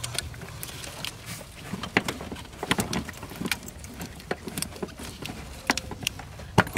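Irregular sharp metallic clicks and clinks of a socket, extension and bolts being handled while the steering column bolts are started by hand.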